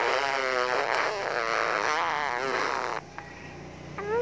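A seven-month-old baby blowing a raspberry: a long, wet buzz of the lips, wavering in pitch, that stops about three seconds in.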